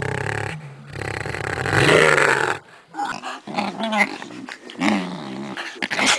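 Small dog growling and snarling, loudest about two seconds in, then in a string of shorter growls.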